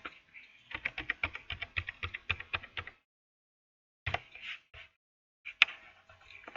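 Typing on a computer keyboard: a quick run of keystrokes for about two seconds, then a few scattered key clicks, as a password is entered.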